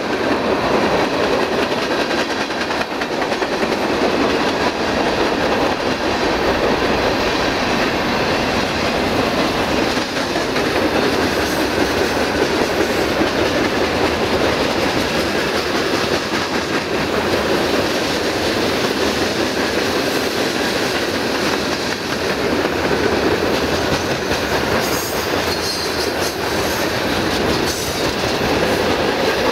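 Freight train cars (tank cars, hoppers and boxcars) rolling past on steel rails: a steady, unbroken noise of wheels running on the track.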